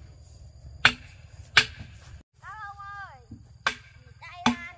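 Sharp knocks of a tool striking timber while a wooden stilt-house frame is being built: four blows in two pairs, each with a short ring. A brief high-pitched voice-like call rises and falls between the pairs.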